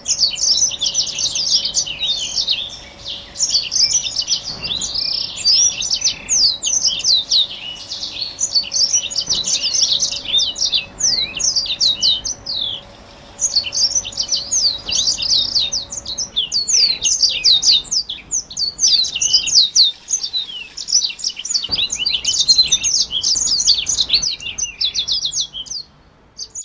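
Black-throated canary (blackthroat) in full song: a fast, unbroken stream of high twittering trills and quick downslurred notes, with short breaks about 13 and 20 seconds in.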